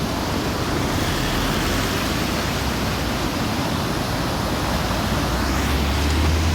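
Waterfall rushing in a steady, loud wash of water noise, with a low hum growing near the end.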